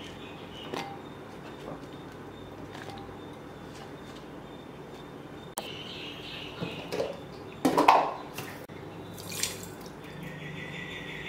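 Kitchen handling sounds around a steel pot of water on a gas stove: light knocks and clinks with dripping water, and one louder clatter about eight seconds in. A steady hiss starts near the end as salt is sprinkled into the water.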